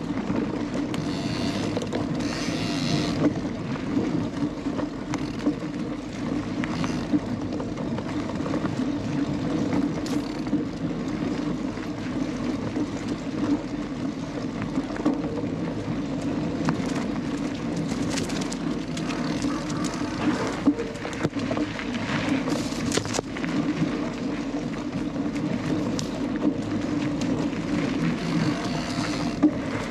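A Canyon Lux Trail cross-country mountain bike being ridden along a dirt forest trail: a steady rush of tyres rolling and wind on the microphone. Now and then there are short louder hisses of grit under the tyres and a few clicks and rattles from the bike.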